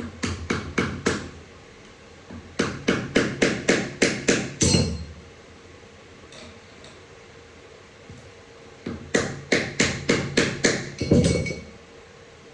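Three runs of quick hammer strikes, about four or five a second, on a tool being driven into the output shaft seal of a ZF 8HP45X automatic transmission to work the seal out. A heavier blow with a short metallic ring closes the second and third runs.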